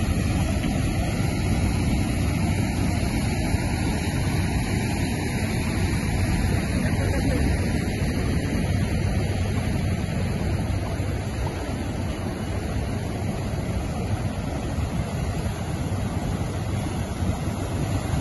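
Stagnant rainwater rushing and churning through a channel cut in the beach sand as it drains into the sea, a steady loud rush mixed with breaking surf.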